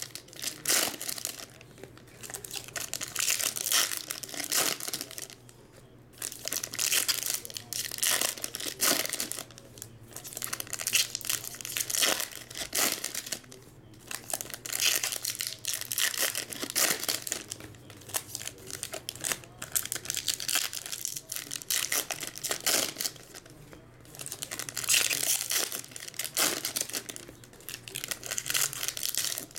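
Foil wrappers of Topps Chrome baseball card packs crinkling and tearing as packs are ripped open and handled, in repeated irregular bursts.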